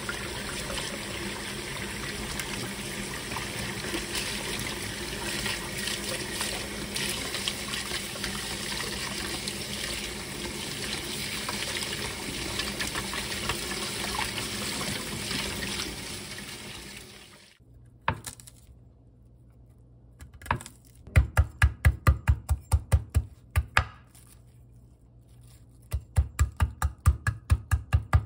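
Kitchen tap running steadily into a glass bowl in a stainless-steel sink while wild chives are rinsed by hand; the water stops about two-thirds of the way in. After a short lull, a kitchen knife chops rapidly on a wooden cutting board, mincing wild chive bulbs, in two quick runs of many strikes.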